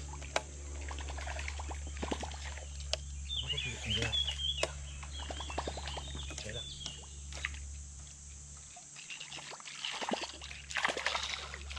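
Topwater fishing lure being worked across a river surface: scattered sharp clicks and small splashes, with a louder splash near the end. A steady low hum runs underneath.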